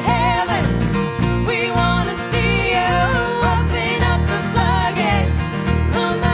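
Live band music: a man singing lead over strummed acoustic guitar, with bass guitar and drum underneath.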